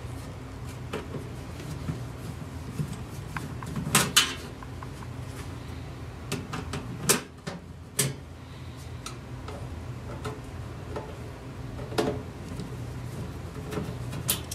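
Screwdriver working the back-panel screws of a CD player's sheet-metal case: scattered sharp metal clicks and small knocks, the loudest about four, seven, eight and twelve seconds in, over a low steady hum.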